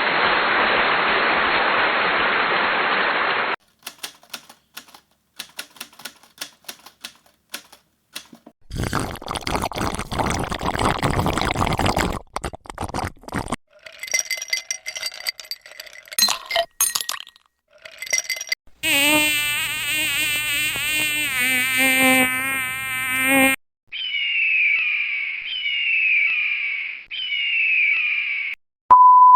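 A string of short, unrelated sound effects back to back: a buzzing hiss, scattered clicks, another burst of hiss, scattered short tones, a wobbling buzz, and near the end three falling chirps.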